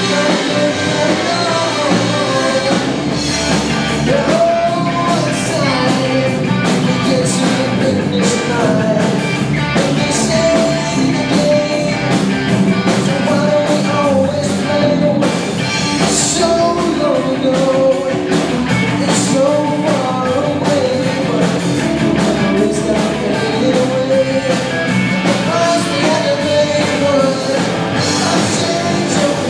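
Live rock band playing loud and without a break: distorted electric guitars and electric bass over a drum kit with frequent cymbal crashes, a wavering melody line riding on top.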